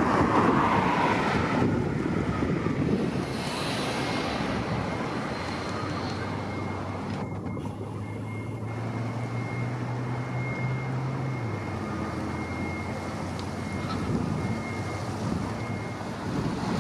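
Steady outdoor vehicle engine noise, with a low engine hum that stops about eleven seconds in.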